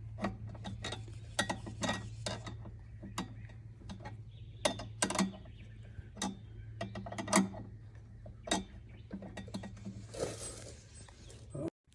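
Hand tools clicking and knocking against metal fittings in irregular sharp clicks while parts are fitted under the trike's front end, over a steady low hum. A short rush of noise comes near the end, then the sound cuts off suddenly.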